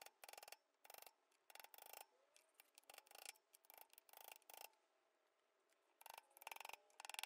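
Claw hammer tapping a socket, used as a driver, to seat an oil seal in the Honda CT70's aluminium crankcase: a series of light, irregularly spaced taps, a pause of about a second, then a few more taps near the end.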